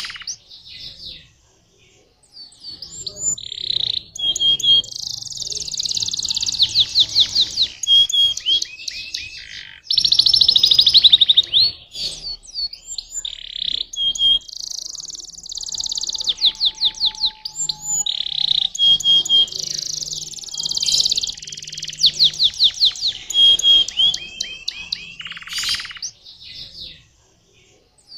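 Domestic canary singing a long song of high-pitched phrases: fast trills and rapidly repeated notes, with a loud rolling trill about ten seconds in and brief pauses between phrases.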